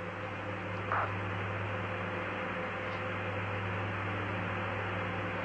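Steady hiss with a low, even hum underneath, and a brief faint blip about a second in.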